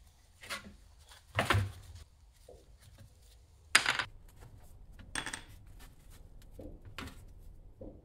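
Wooden sand-casting flask knocked about and set down on a metal tray: about seven wooden knocks and clunks against the tin. The sharpest comes a little before the halfway point, as the flask is laid flat.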